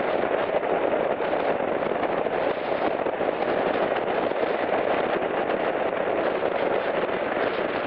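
Steady rush of wind buffeting a handheld action camera's microphone on a motorcycle moving at road speed, with a fast crackle running through it and road noise underneath.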